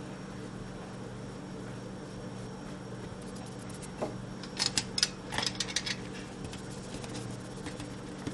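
Metal hand-crank flour sifter being handled and cranked, giving a quick run of sharp metallic clicks and rattles for about a second and a half midway, over a steady low hum.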